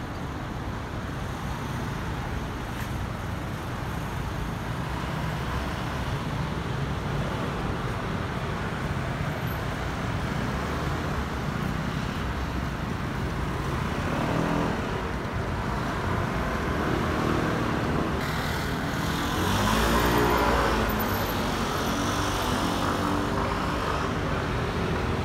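City road traffic circling a roundabout: a steady hum of passing cars, with a couple of vehicles passing closer, their engine note rising and falling, loudest about three-quarters of the way through.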